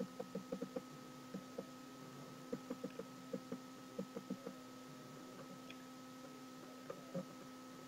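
Faint ticking of a computer mouse's scroll wheel in several short bursts as pages are scrolled, over a steady electrical hum.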